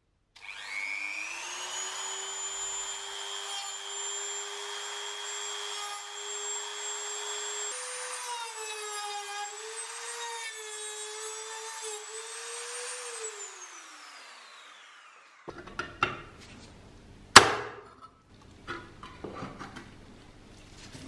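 Dremel rotary tool with an abrasive bit spinning up into a steady high whine, grinding rust and paint off the steel part of a vintage Tonka toy; the pitch wavers as the bit is pressed against the metal, then it spins down. Afterwards come a few light knocks and one sharp knock.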